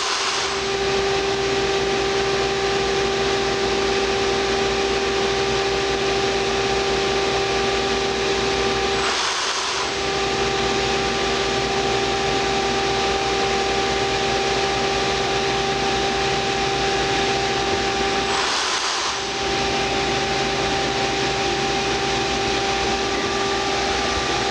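A roll-fed thermoformer running in cycle: a steady machine hum with a held tone. Three times, about every nine and a half seconds, the tone drops out for a moment under a short burst of hiss.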